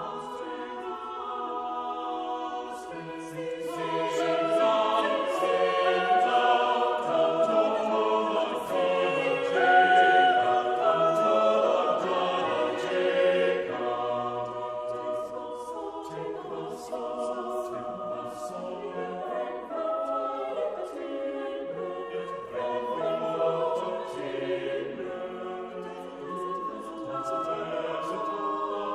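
Choral music: a choir singing slow, sustained chords, swelling to its loudest about ten seconds in.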